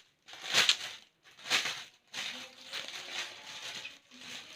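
Parcel packaging being handled and pulled open: crackling and rustling, with two loud crackles in the first two seconds and steadier rustling after.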